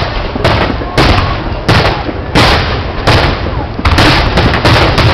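Large aerial fireworks going off in quick succession: about eight loud shell bursts in five seconds, each a sharp boom, over a continuous rumble of further explosions.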